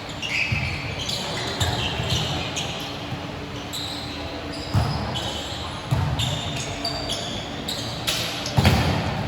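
Basketball game in a gym: the ball thuds on the hardwood as it is dribbled, shoes squeak in short high chirps, and voices call out in the hall, with a couple of sharp knocks about five and nine seconds in.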